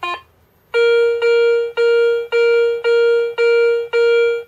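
Garrett ACE 250 metal detector beeping its target tone seven times in a row, about two beeps a second, each the same steady pitch, as a copper half-kopeck coin is passed back and forth over the search coil. The clean, repeatable signal shows the detector and coil working and picking up the copper coin.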